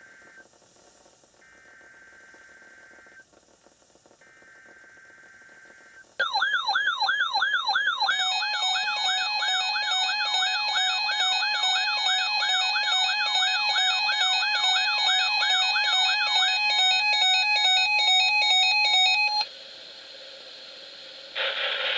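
NOAA weather radio receivers being set off by a broadcast alert: three short, quiet bursts of data tones (the alert header), then about six seconds in the receivers' alarms go off loudly. One is a fast up-and-down warbling siren; from about eight seconds it is joined by rapid beeping that alternates between two pitches. The warble stops about sixteen seconds in and the beeping about three seconds later.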